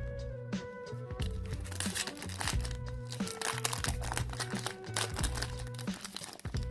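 Background music with a steady bass line, and from about a second in, the dense crackling and crinkling of a foil trading-card booster pack being handled and torn open.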